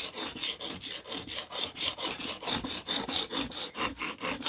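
Knife blade stroked quickly back and forth on the smooth side of a cheap whetstone: an even, rhythmic scraping, several strokes a second, raising a burr on the other side of the edge.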